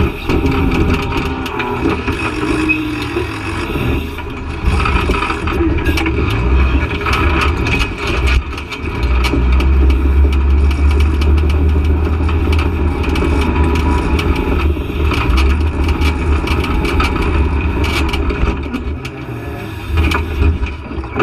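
Off-road vehicle's engine working hard up a steep hill climb, running deeper and louder through the middle stretch, with scattered knocks and scrapes throughout.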